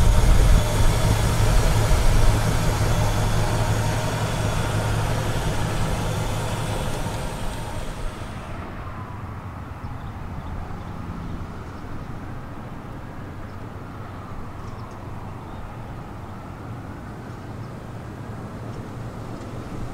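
1959 Chevrolet Biscayne's 283 two-barrel V8 idling steadily close by. About eight seconds in, the sound cuts to the car driving from farther off, quieter, its engine pitch rising and falling as it comes up the road.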